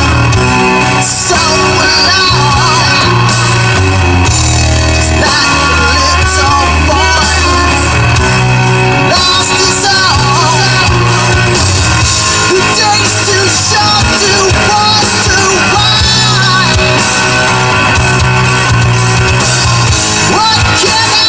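A loud 1980s hard-rock song with a singer over a full band: bass, guitars and drums.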